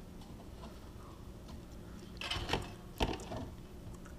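A few light metallic knocks and clinks, about two to three seconds in, as the loosened rear sway bar and its end link are worked by hand on a Polaris RZR 800, over a faint steady low hum.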